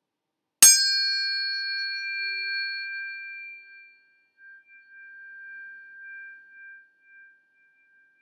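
A metal chime or bell struck once about half a second in, ringing with several clear high tones that die away slowly and waver over the following seven seconds.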